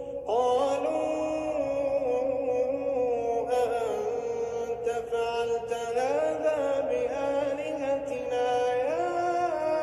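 A man's voice reciting the Quran in melodic tajweed style. It holds long notes that glide and turn in pitch, with short breaks between phrases.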